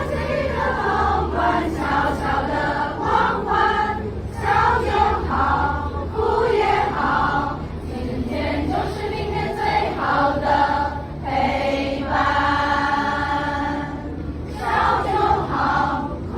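Many voices singing a melody together like a choir, with phrases that shift in pitch and a long held chord near the end.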